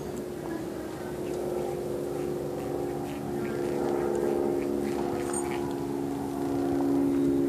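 A motor running steadily nearby: an even, low hum with several steady tones, a little louder near the end.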